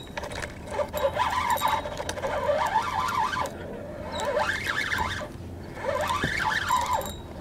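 Spinning reel being cranked against a hooked fish, its whine rising and falling in pitch with the speed of the handle in several spells, with short breaks between them.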